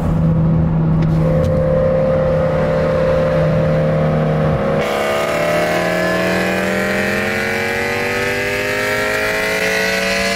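Mitsubishi Lancer Evolution X's turbocharged four-cylinder engine heard from inside the cabin. It holds steady revs for about five seconds, then goes to full throttle and accelerates hard, its pitch climbing steadily.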